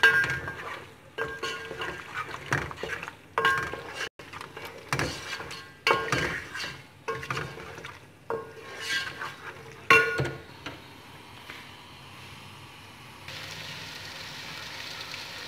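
A spoon scraping and clinking against a metal cooking pot in irregular strokes as mutton and spices are stirred and fried in oil. The stirring stops about ten seconds in, leaving a steady sizzle of the meat frying.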